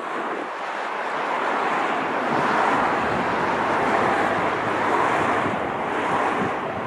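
Jet airliner engine noise, a broad rush that swells to a peak mid-way and then eases, mixed with wind.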